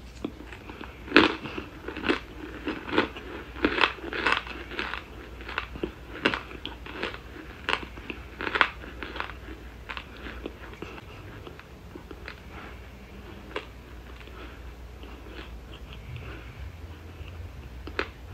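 Raw cornstarch chunks being chewed close to the microphone: sharp, crisp crunches come about every half second for the first nine seconds, then thin out to a few fainter ones.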